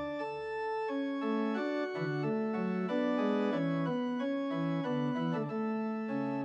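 Organ music: a melody of held notes moving step by step over sustained chords.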